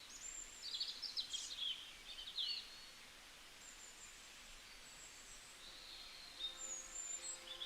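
Songbird chirps and quick twittering trills, a cluster in the first few seconds and more near the end, over a faint outdoor hiss. Soft music comes in faintly near the end.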